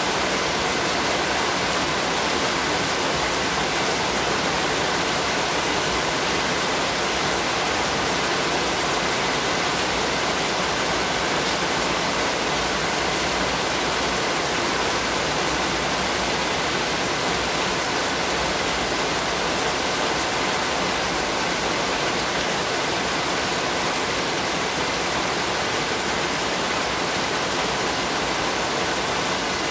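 Heavy rain pouring steadily onto hard, wet ground.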